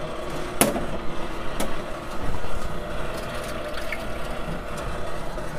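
Commercial popcorn kettle machine running with a steady hum, with two sharp knocks about a second apart within the first two seconds.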